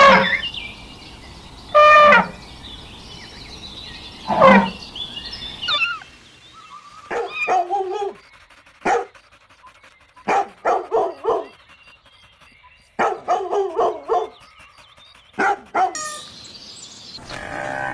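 Dog barking: three single loud barks about two seconds apart, then short quick runs of barks in clusters.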